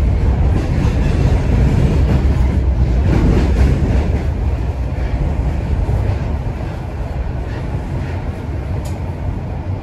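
Toronto Rocket subway train running between stations, heard from inside the car: a steady, loud, low rumble of wheels on rail with a few faint clicks about three seconds in. It eases a little after about six seconds.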